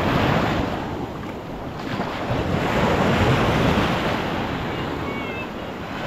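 Sea surf washing onto the beach in slow swells, with wind buffeting the microphone. A few faint high chirps near the end.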